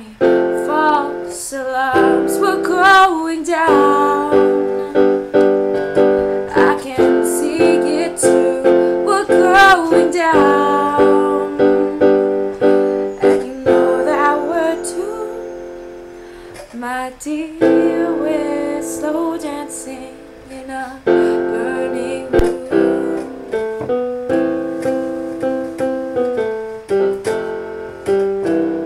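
A woman singing over piano or keyboard chords, with a quieter passage about halfway through.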